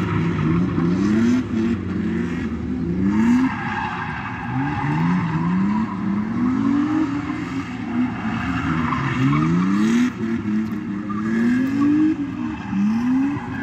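Drift car's engine revving hard over and over, its pitch climbing again and again as the car slides sideways, with tyres squealing against the asphalt.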